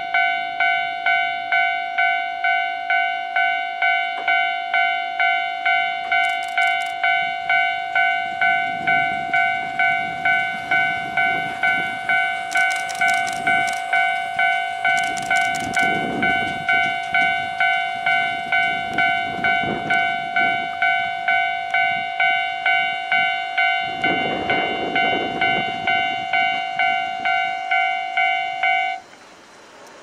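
Japanese level-crossing warning bell ringing in a steady, even rhythm, a little under two strokes a second, while cable cars roll across. It cuts off suddenly about a second before the end, the signal that the crossing is clear. Under the bell, the cable cars' wheels rumble in several swells with bursts of clicking on the rails.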